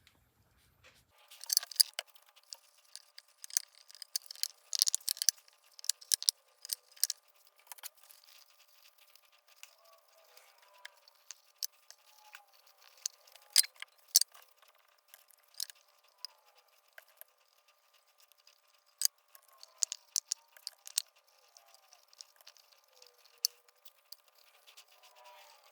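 Small metal tins being handled on a workbench: irregular light clicks and taps, with faint high chirps underneath.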